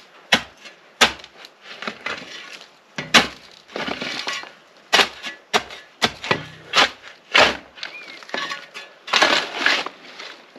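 Shovel digging into dry, stony soil: a run of sharp chops and scrapes of the blade, roughly one or two a second, with a couple of longer scrapes.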